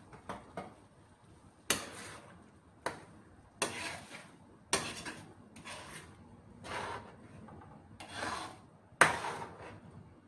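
A metal spoon stirring thick tomato sauce in an aluminium frying pan, scraping the pan about once a second, each stroke starting with a sharp scrape.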